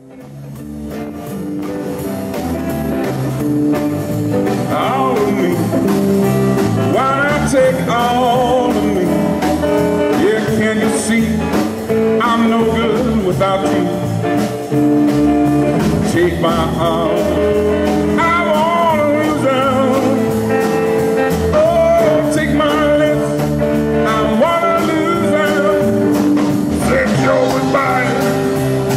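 Live band playing with electric guitar and bass, a male singer coming in about five seconds in. The music fades up over the first few seconds.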